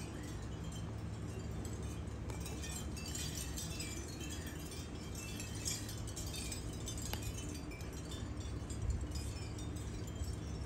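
Wind chimes tinkling, scattered high ringing notes at several pitches, over a low steady hum.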